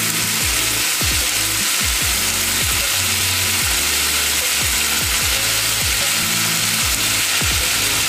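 Marinated potato skewers sizzling in oil in a hot nonstick frying pan, a steady hiss. Background music with a steady bass beat plays underneath.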